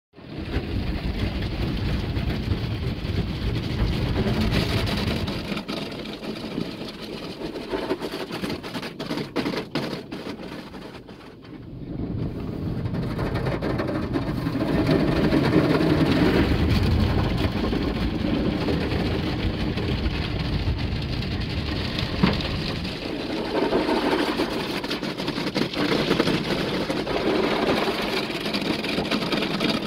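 Automatic car wash heard from inside the vehicle's cabin: the wash brushes and cloth strips slap and scrub across the windshield and body while water and foam spray against the glass. It is a loud, steady din, with a run of sharp slaps about eight to eleven seconds in, a brief lull just after, and then it builds again.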